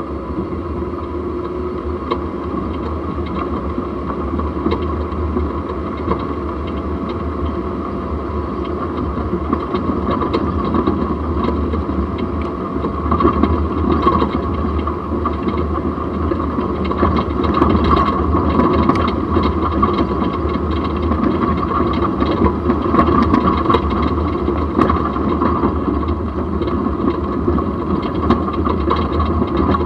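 Jeep on the move, heard from a camera mounted low at the front axle: steady road and drivetrain noise with frequent small knocks and rattles, a little louder from about halfway on.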